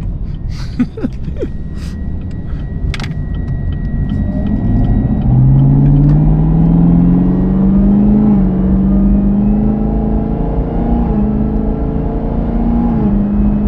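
Chevrolet Camaro ZL1's supercharged 6.2-litre V8 accelerating hard, its note climbing steadily and dropping back with upshifts about halfway through and twice more near the end. In the first few seconds a thin steady high whistle is heard, the strange rear whistle the owners are chasing and suspect lies somewhere in the fuel system.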